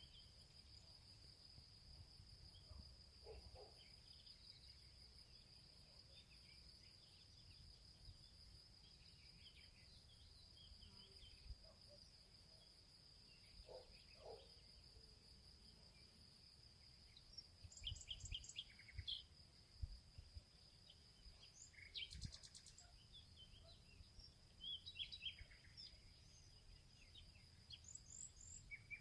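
Faint forest ambience: a steady high-pitched insect trill, most likely a cricket or bush-cricket, under scattered songbird chirps and calls that grow busier in the second half. Soft low thuds of footsteps on the forest floor sound beneath.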